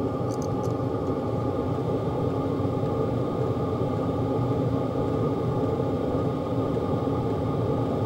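Diesel air heater running steadily at its minimum power level, a constant whir of fan and burner with a faint steady hum. A few faint clicks sound about half a second in.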